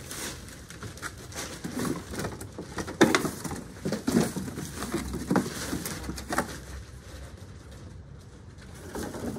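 Irregular knocks and bumps of bed parts being handled and set in place, the sharpest knock about three seconds in.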